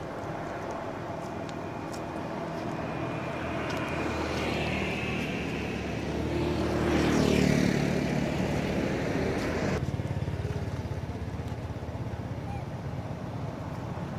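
A motor vehicle's engine running and passing by, growing louder to a peak about halfway through and then fading. The sound changes abruptly about two-thirds of the way in, and a steady engine hum continues after that.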